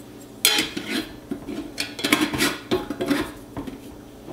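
Glass ingredient jars handled on a kitchen counter: a run of clinks, knocks and scrapes starting about half a second in and stopping near the end.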